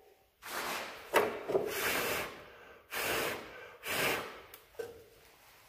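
A man blowing hard by mouth into the chop saw's base to clear out grinder dust and chips: about five short puffs of rushing air, each about half a second long.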